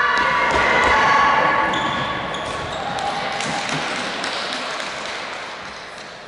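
Players shouting and cheering, echoing around a large sports hall, dying away about a second and a half in. Scattered footfalls and shoe squeaks on the wooden court floor follow.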